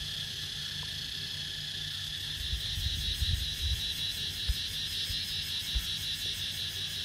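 Steady, high-pitched chirring of insects, with a few low bumps on the microphone partway through.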